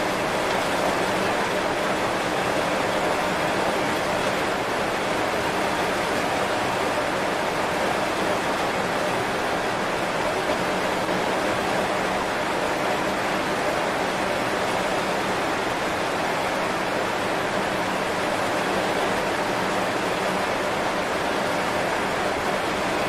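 Heavy rain falling on banana leaves, a steady, even wash of drops.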